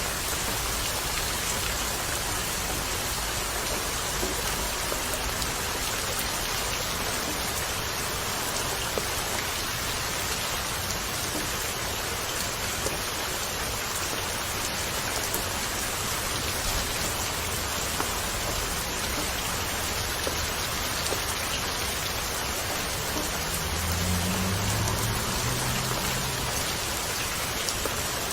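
Steady rain falling on a surface, an even hiss with scattered small drop ticks. A low rumble swells briefly about 24 seconds in.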